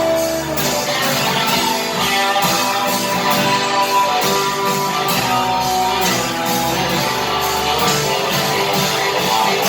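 Instrumental section of a guitar-driven rock song: strummed guitar over a steady beat, with no singing.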